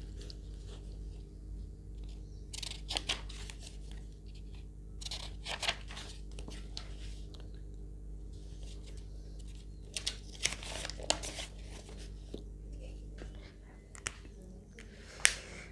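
Short spells of scratching and rustling of paper, as from writing on and handling a sheet, four times over a steady low electrical hum.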